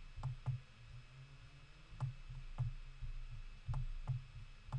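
Computer mouse clicking: sharp clicks, mostly in pairs, each with a dull knock under it, a second or so between the pairs.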